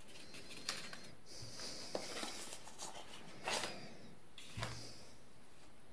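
Faint rustling and a few light taps of paper and cardboard being handled: a folded user manual set down and a USB cable drawn out of a small white cardboard box.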